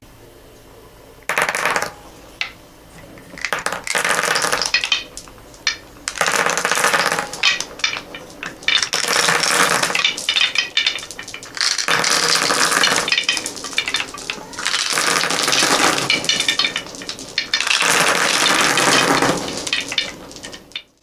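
Many small beads clattering and rattling against each other and a hard surface, a dense stream of clicks in bursts of several seconds with short lulls between them.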